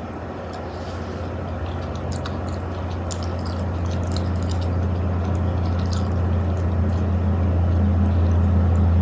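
Wet mouth sounds of someone eating spaghetti: scattered slurping and smacking clicks. Under them runs a steady low hum that grows gradually louder.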